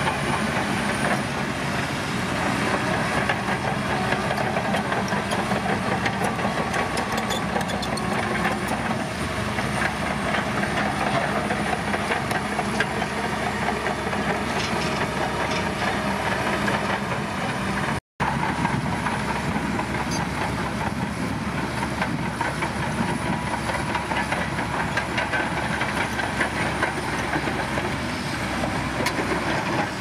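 Shantui DH17 crawler bulldozer's diesel engine running under load, with its steel tracks clanking and rock crunching as it pushes broken stone. The sound cuts out for an instant a little past the middle.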